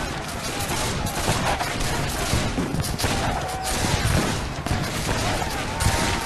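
Rapid, continuous gunfire, with shots overlapping in dense volleys and no pause.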